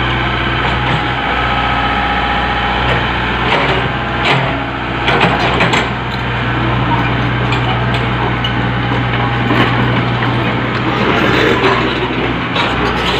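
Komatsu PC75UU-3 excavator's diesel engine running steadily while the boom, arm and bucket are worked. A few short knocks come around four to six seconds in.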